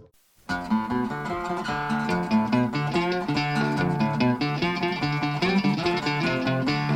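Background music: after a brief silence, a plucked-string instrumental starts about half a second in, with quick picked notes.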